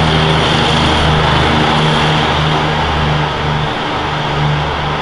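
Semi-truck's diesel engine running steadily as the tractor-trailer drives slowly past, with a low, even throb.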